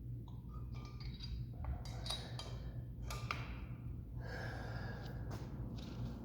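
A man breathing and sniffling, nose stuffy with a cold, with a few light clicks and knocks over a steady low hum.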